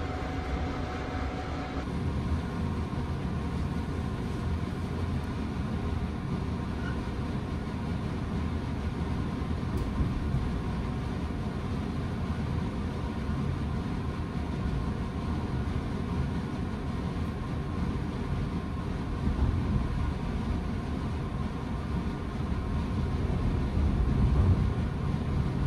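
Steady low rumble of the West Express Ginga, a converted 117-series electric train, heard from inside the passenger car as it pulls out past the platform, getting a little louder near the end.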